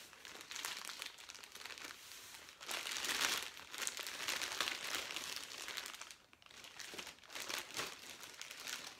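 Clear plastic wrapping crinkling and rustling as it is pulled off a new fishing rod, loudest about three seconds in.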